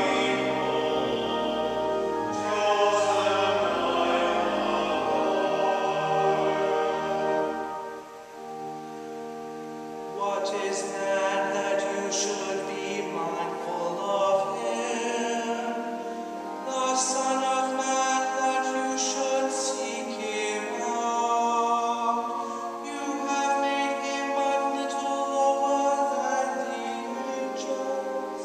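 Singing in church with organ accompaniment: a few voices hold long, wavering notes over sustained organ chords. The deep bass notes stop about eight seconds in.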